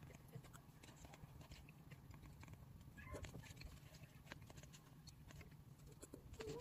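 Faint sipping through a straw from a cup of milk tea with toppings and soft chewing: scattered small clicks, with a brief squeaky slurp about three seconds in and another near the end.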